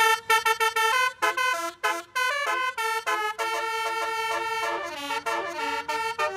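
Basuri telolet horn, a multi-trumpet musical vehicle horn, playing a fast tune of short notes in chords, with a longer held note about halfway through.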